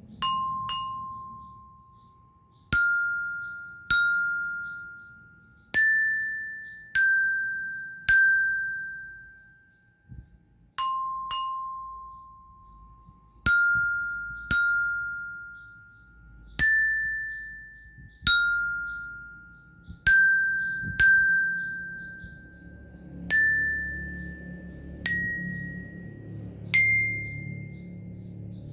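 Bell lyre (marching-band glockenspiel with flat metal bars) struck with a single mallet, one note at a time, playing a slow melody. Each note rings out and fades before the next, about every one to two seconds, now and then two notes in quick succession.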